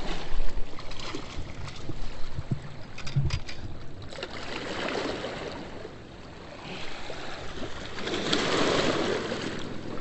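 Rushing water and wind noise at a river spillway, with scattered knocks and clicks in the first few seconds and two swells of louder rushing noise, about halfway through and again about three quarters through.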